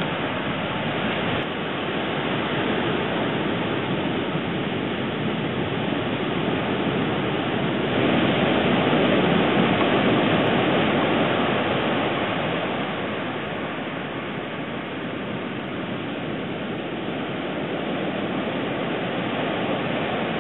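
Ocean surf washing on the shore: a steady rushing noise that swells about eight seconds in, then slowly eases off.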